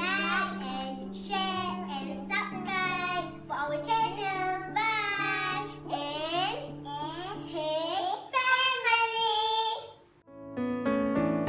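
A child's voice singing over music with a steady low held note, then the singing stops and a short electric-piano tune plays for the last second or so.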